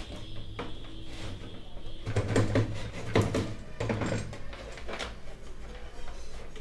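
Hands handling an opened CRT television's plastic cabinet, chassis and wiring: a string of irregular clicks and knocks, busiest in the middle.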